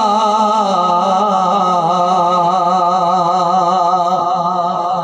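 A man singing a naat through a microphone and loudspeakers, holding one long wavering note that breaks off at the very end.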